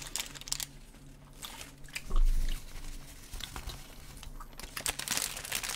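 Close-miked eating of a fast-food burger and fries: scattered chewing and biting clicks, with a low thump about two seconds in and paper wrapper rustling near the end.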